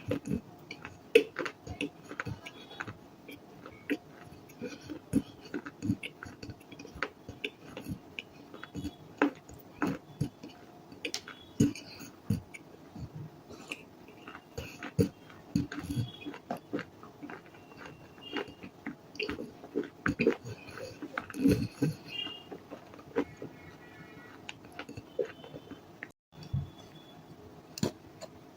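Chewing and crunching: a rapid, irregular series of sharp crunches as something brittle is bitten and chewed.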